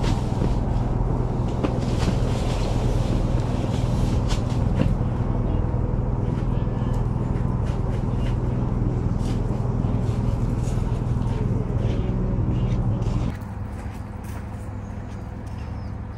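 A steady mechanical hum with a low, even drone, over light clicks and rustling. It cuts off suddenly about thirteen seconds in, leaving quieter outdoor ambience.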